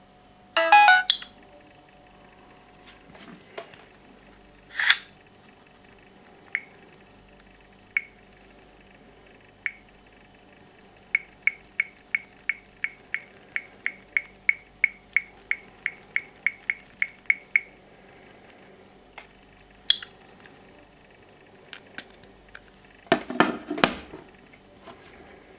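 Smartphone beeping: short high beeps, a few widely spaced at first, then a run of about three a second for several seconds, typical of an alarm or call alert sounding while a call is in progress. A brief loud tone about a second in, and a clatter of handling near the end.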